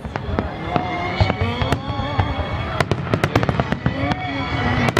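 Fireworks going off in quick succession: many sharp bangs and crackles over a constant low rumble.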